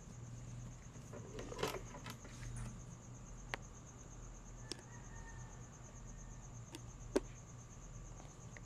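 Crickets trilling steadily in a high, evenly pulsing chirr over a low hum, with a few scattered sharp clicks and knocks, the sharpest about seven seconds in.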